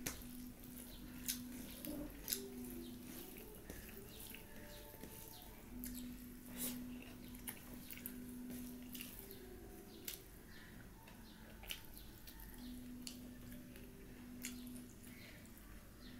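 Eating sounds: fingers mixing rice and curry on a steel plate and soft mouth clicks and smacks while chewing, as scattered wet clicks at irregular intervals.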